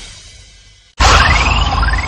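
Sound effects: a crash-like hit fades out over the first second, then a second sudden hit about a second in carries two rising whistle tones.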